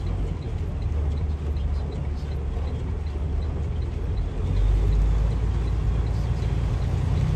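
Heavy rain beating on a semi-truck's cab and windshield over the low rumble of the truck's diesel engine, heard from inside the cab. The engine rumble gets louder about halfway through.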